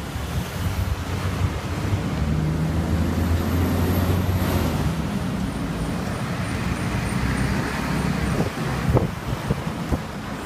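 Busy street traffic: a steady roar of passing vehicles, with a motor vehicle's engine hum swelling and fading close by in the first half. A few sharp knocks near the end.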